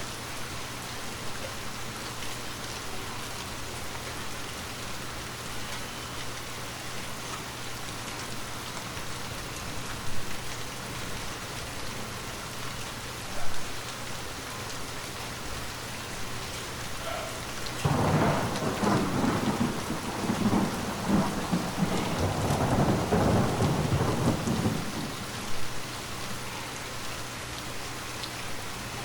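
Steady rain falling, with a long roll of thunder rumbling for about seven seconds in the second half. Two short sharp taps stand out above the rain before the thunder.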